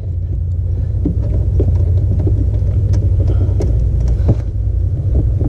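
Light scattered clicks and ticks of the clutch master cylinder pushrod being turned by hand under the dashboard, over a steady low rumbling hum.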